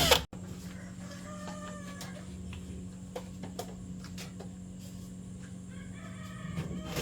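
Fowl calling twice in the background, faint, over a steady low hum. A brief loud burst of noise cuts off right at the start.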